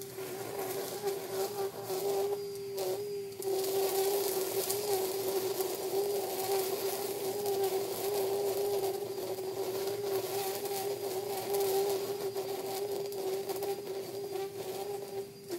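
Battery-powered string trimmer running at a steady high whine, cutting grass along a fence line; the whine eases off briefly about two and a half seconds in.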